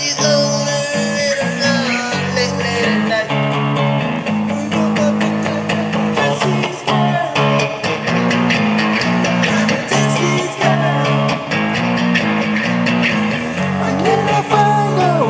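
Squier electric guitar being played: a strummed rhythm over low bass notes, with some bent notes.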